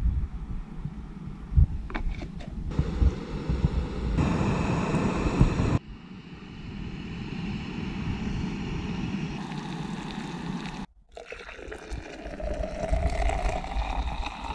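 Jetboil gas stove burning with a steady hiss as it heats water, then hot water poured into a glass French press over ground coffee, the pouring rising in pitch as the press fills near the end. Wind rumbles on the microphone in between.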